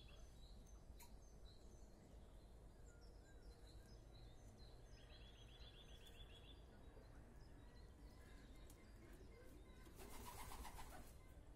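Faint chirps and short rapid trills of small birds, repeated over a low steady background hum, with a brief rustling burst about ten seconds in.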